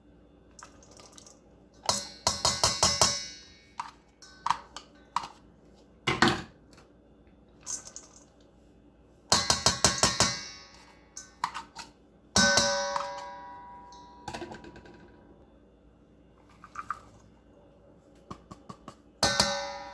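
Dishes clattering as chopped vegetables are tipped and tapped out of prep bowls into a mixing bowl. The knocks come in about five quick clusters with pauses between, and one knock leaves a bowl ringing briefly.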